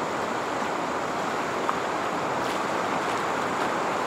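Steady rush of a river's whitewater rapids flowing past close by.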